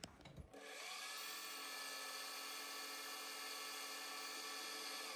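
Metal lathe running while a boring bar takes a light cut inside a brass bearing. A steady mechanical whine starts about half a second in, rising briefly in pitch as the machine comes up to speed, then holds steady.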